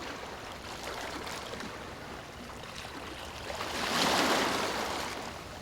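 Gentle sea waves: a steady wash of surf, with one wave swelling louder about two-thirds of the way through and then easing off.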